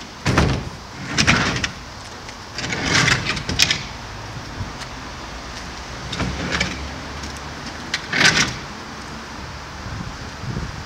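Wooden pallet under a 1000-litre IBC tank scraping and grinding over asphalt as the tank is pushed and turned by hand, in a series of about six short, uneven scrapes.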